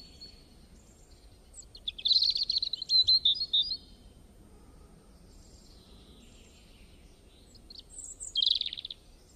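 Birds chirping and twittering over a faint steady background hiss. A loud burst of quick high chirps about two seconds in lasts nearly two seconds, and a shorter burst comes near the end.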